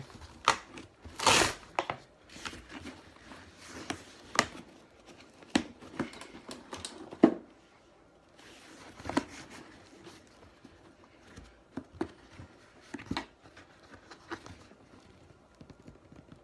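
Packing strap being pried and pulled off a cardboard box: scattered scrapes, snaps and clicks of the strap and cardboard, with a longer scraping rasp about a second in and a sharp snap about halfway through.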